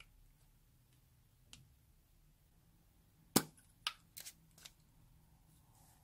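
A handful of sharp clicks from a metal lipstick tube and its cap being handled. The first and loudest comes a little past halfway, followed quickly by about four lighter ones.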